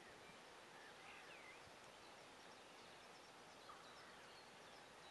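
Near silence: faint steady outdoor hiss, with a few faint bird chirps about a second in and again later.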